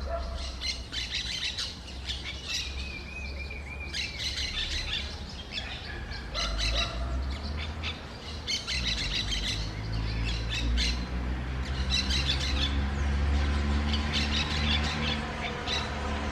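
Birds calling: clusters of short, sharp chirps repeat throughout, with one held whistled note about three seconds in. A low steady rumble runs underneath, and a low droning hum joins about halfway through.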